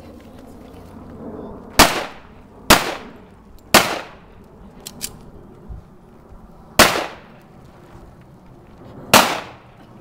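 Pistol shots: three shots about a second apart, then after a pause of about three seconds a fourth, and a fifth about two and a half seconds later, each with a short echo trailing off.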